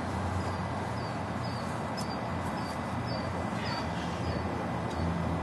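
Night-time outdoor ambience: insects chirping, short high chirps about twice a second, over a low steady rumble.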